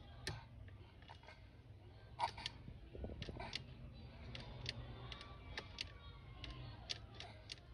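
Faint, irregular clicks and ticks, a dozen or so, over a low steady rumble inside a car.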